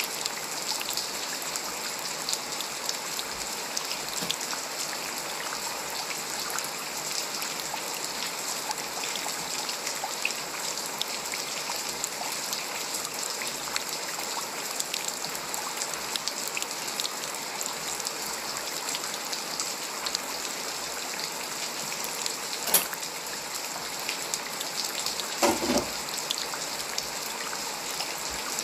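Steady rain falling, with many small drop ticks in a continuous hiss. A single sharp louder tick comes about 23 seconds in, and a brief louder sound near the end.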